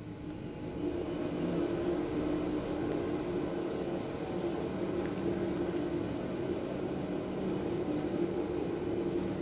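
Schindler elevator car travelling between floors: a steady low hum with a couple of held low tones, growing louder about a second in and then holding.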